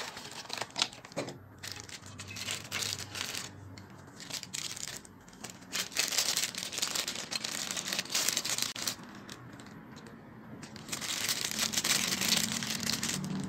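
Clear plastic bag of plug adapters crinkling as it is handled, in two spells, the second near the end. A few light clicks from a cardboard box being handled come near the start.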